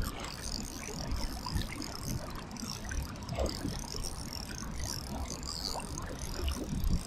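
Steady rush of river water, with irregular wind buffeting on the microphone and small knocks of handling.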